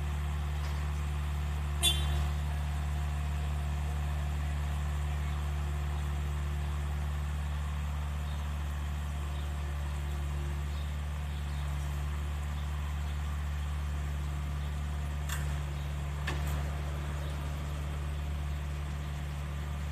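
Bobcat S175 skid-steer loader's diesel engine idling steadily, with a sharp click about two seconds in and two more near the end.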